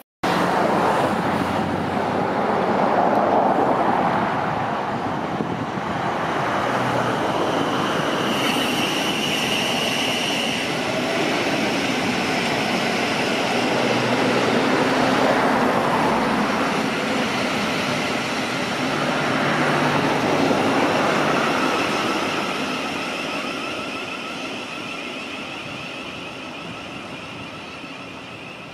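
Electric passenger train running past on the line, a steady loud rumble with a brief high whine about a third of the way in. The sound fades as the train draws away near the end.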